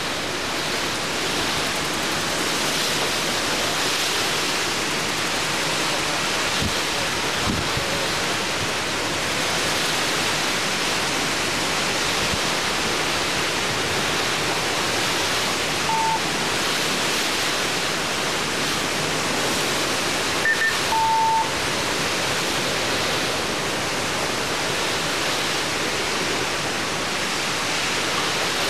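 Hurricane wind and driving rain making a steady, loud rushing noise. Three short beeps come in a little past the middle.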